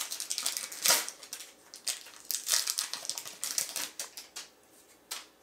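Trading cards being handled and slid off one another, a run of short papery swipes and flicks. The strongest comes about a second in, and they thin out near the end.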